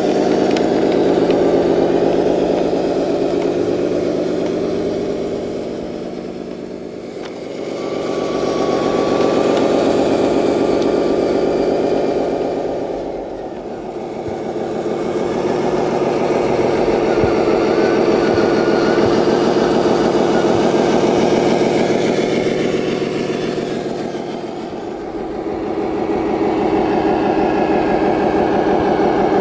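Simulated diesel truck engine from the electronic sound module of an RC Scania dump truck, running steadily as the truck drives. It dips in loudness briefly three times and comes back up.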